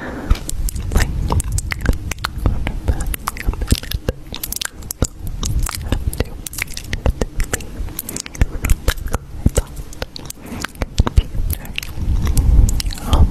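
Dense, irregular clicking and crunching close to the microphone, several sharp clicks a second over a low rumble.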